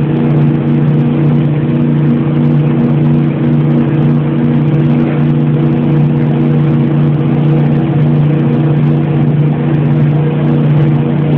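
Motorboat engine running steadily under way, a loud, even drone that holds one pitch throughout.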